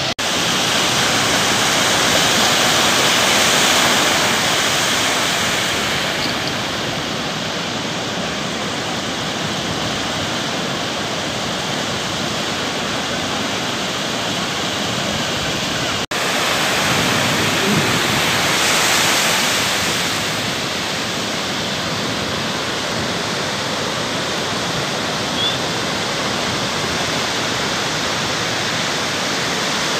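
Surf breaking on the beach: a steady rushing of waves that swells and eases slowly, briefly cutting out about halfway through.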